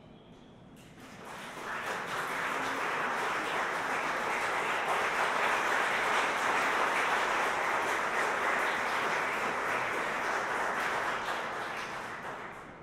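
Audience applauding at the end of a choral piece: the clapping swells about a second in, holds steady, and dies away near the end.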